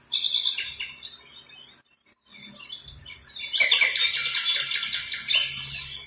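Recorded birdsong, the "birds chirping" nature sound of a Kstar ANJANK AC003 alarm clock, played through the clock's own speaker. Scattered high chirps at first, growing denser and louder a little past halfway.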